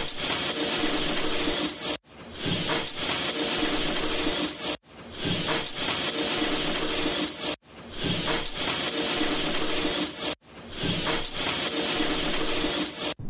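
Looped sound effect of a stream of liquid, standing for urination, a few seconds long. It cuts off abruptly and restarts four times at even spacing.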